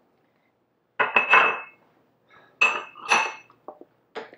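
Kitchen utensils knocking and scraping against a stainless steel cooking pot: two bursts of clattering clinks with a metallic ring, then a few lighter knocks near the end.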